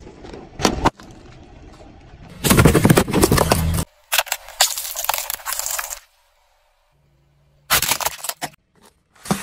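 A car tyre crushing plastic jars and tin cans of water beads: a sharp crack, then long stretches of loud crunching and crackling, a short quiet gap, and a last crunch and crack near the end.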